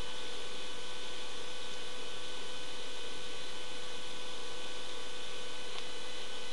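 Steady hiss with a constant electrical hum, and a faint tick near the end.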